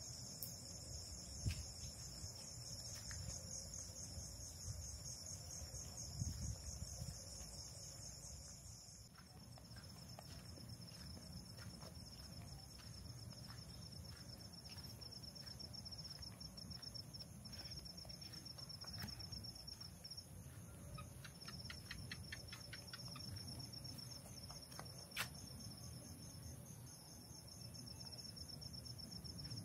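Crickets trilling steadily in a high, fast pulse, two trills overlapping for the first third and one carrying on after; a low rumble sits underneath, with a few faint knocks.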